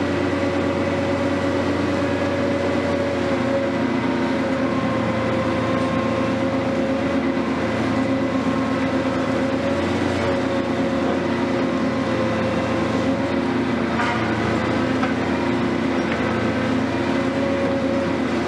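Hitachi 470 long-reach demolition excavator running steadily under load, its engine and hydraulics giving a droning hum with several held tones. There is a short knock about fourteen seconds in.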